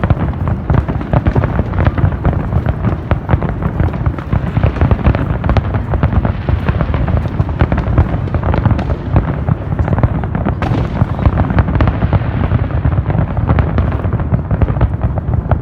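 Fireworks display: a dense, unbroken barrage of shells bursting and crackling, many bangs a second without a pause.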